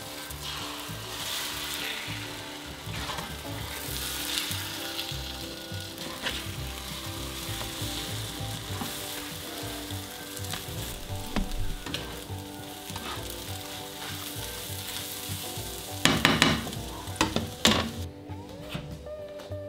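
Egg omelette with bread pieces sizzling as it fries in a nonstick pan, while a plastic spatula stirs and scrapes through it. A run of louder scrapes comes near the end.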